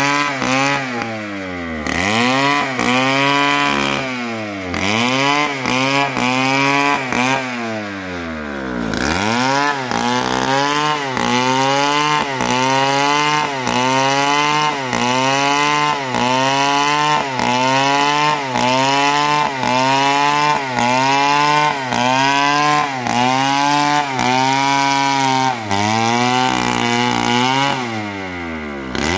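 STIHL chainsaw ripping lengthwise along an old palm log, its engine pitch sagging under load and climbing again about once a second as the bar is worked through the cut. Near the end the engine drops back in pitch.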